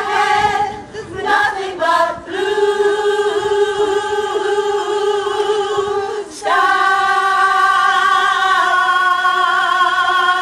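Small women's choir singing unaccompanied: a few short notes, then two long held notes, the second, from about six seconds in, louder.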